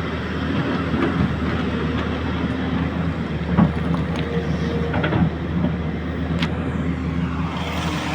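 Excavator's diesel engine running steadily, with a few sharp knocks and clanks about halfway through.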